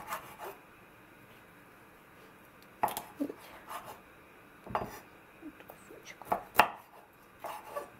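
Chef's knife cutting through smoked pork ribs and knocking down onto a wooden cutting board, in a series of irregular strokes with short scrapes between them. The loudest knock comes about six and a half seconds in.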